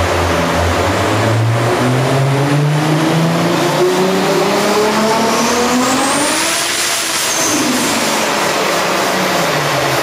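Highly tuned 1000+ bhp Toyota Supra straight-six running under load on a rolling-road dyno. The revs climb steadily for about seven seconds with a high whine rising alongside, then fall away as the car fights for traction on the rollers.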